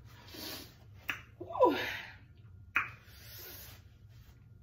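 A woman's short bursts of breath and a sharp, sneeze-like vocal burst that falls in pitch about a second and a half in, with another sharp burst near three seconds. She is reacting to very hot, spicy food.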